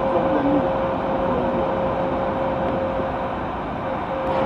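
VAL rubber-tyred automated metro train running through a tunnel, heard from inside the car: a steady rumble with a steady high whine over it.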